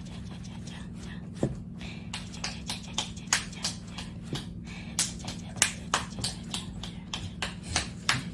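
A quick run of short, sharp clicks or taps, roughly three a second and somewhat irregular, starting about a second in, over a steady low hum.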